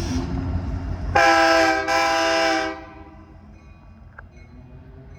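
Air horn of an EMD SD70MAC freight locomotive sounding two blasts almost back to back, each under a second long, over the low rumble of the diesel engines.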